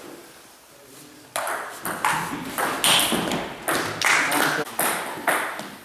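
Table tennis ball clicking and bouncing, irregularly about two times a second, each click ringing briefly in a reverberant hall.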